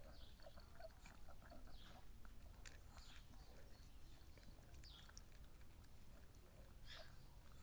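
Faint wet licking and lip-smacking of a chihuahua lapping raw egg out of the shell, a scatter of small clicks and smacks.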